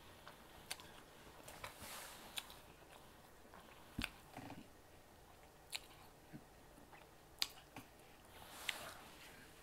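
Faint mouth sounds of someone chewing sauce-covered meatballs: scattered wet clicks and smacks, with a few brief soft swallowing or breathing sounds.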